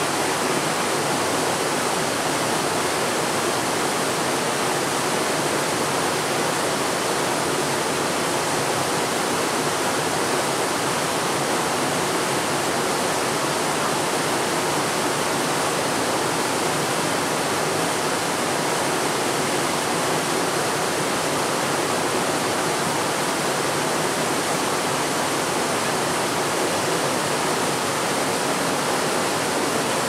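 Steady, even rush of running water, unchanging throughout, with no duck calls heard over it.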